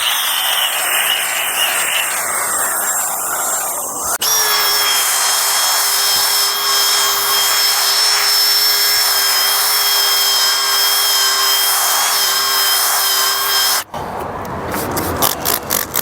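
Electric sander wet-sanding a plastic headlight lens with an 800-grit disc: a steady motor whine over a rushing scrub. The sound changes abruptly about four seconds in and stops about fourteen seconds in, followed by a few sharp knocks.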